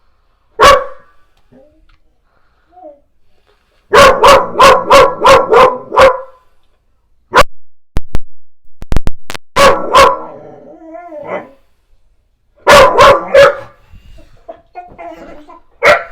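Goldendoodle barking loudly in volleys. A single bark comes first, then a quick run of about seven barks, then scattered barks and another short run of rapid barks.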